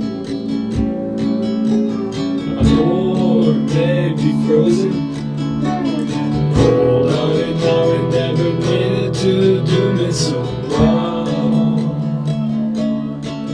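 Lo-fi rock music: a strummed acoustic guitar over held low notes, with a wavering melody line on top.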